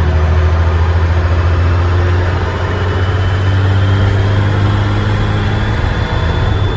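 Dennis Trident bus's diesel engine running steadily, heard from on board, with a faint turbo whistle that climbs slowly in pitch from about midway and starts to drop right at the end.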